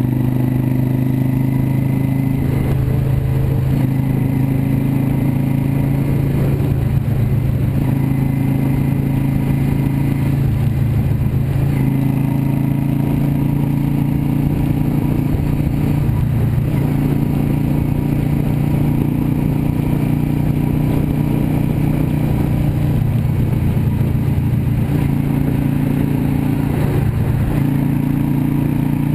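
Yamaha V Star 650 Custom's V-twin engine running at a steady highway cruise, heard from the handlebars, its pitch easing up and down slightly every few seconds with the throttle.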